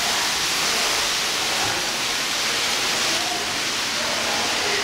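A steady, even rushing hiss with no change in level, with faint distant voices underneath.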